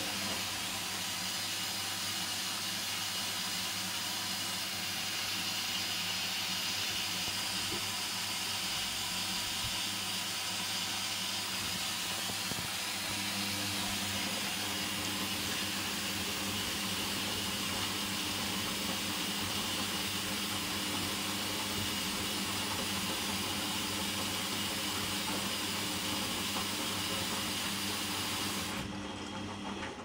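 Hoover Dynamic washing machine tumbling a load of coloureds on its second rinse in a very high water level: a steady motor hum under water swishing and hissing in the drum. The sound drops away sharply near the end as the drum stops.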